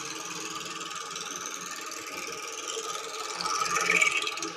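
A small motor running steadily, growing louder about three seconds in.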